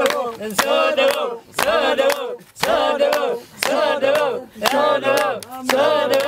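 A group of voices chanting a song together to steady hand clapping, about two claps a second.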